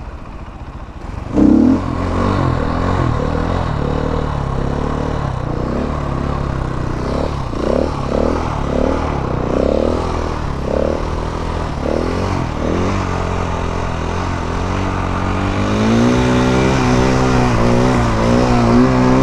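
Motorcycle engine running, its pitch wavering through the middle, then revving up a little past two-thirds of the way through and held high before falling off at the very end, as when the rider carries a wheelie.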